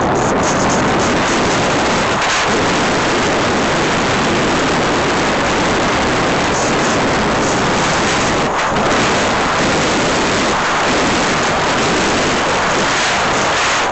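Loud, steady rush of wind over the microphone of a camera carried on an aircraft in flight, with no distinct engine tone heard through it.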